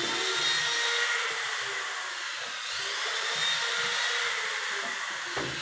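A steady whirring hiss of a running electric motor, holding the same level throughout with faint high-pitched sweeps.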